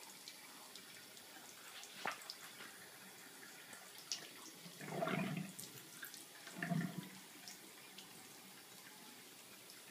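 A tap running a thin, faint, steady stream into a bathroom sink through a plastic faucet extender, with a click about two seconds in and two short, louder sounds around five and seven seconds in.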